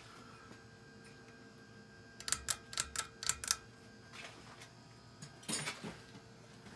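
Faint steady hum of a Hunter Low Profile II ceiling fan, with a quick run of about seven sharp clicks a couple of seconds in and a short scraping rustle near the end.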